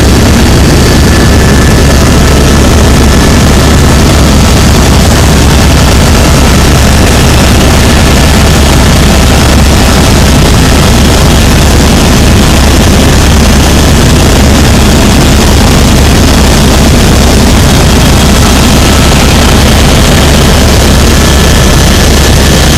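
Helicopter engine and rotor noise heard inside the cabin in flight: a loud, steady drone with a strong low rumble.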